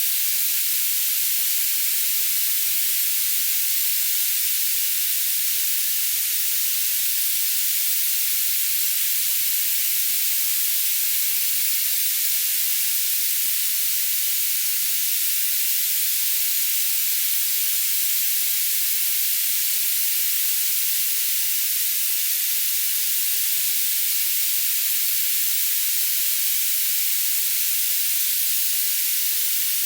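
Steady high-pitched hiss of filtered noise, with no low end and no change in level, played as a tinnitus masking sound.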